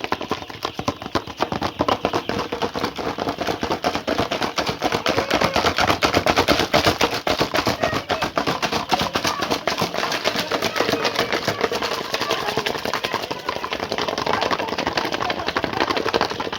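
A large flock of young broiler chicks making a dense, rapid, clicking din of overlapping peeps and pecks that goes on without a break.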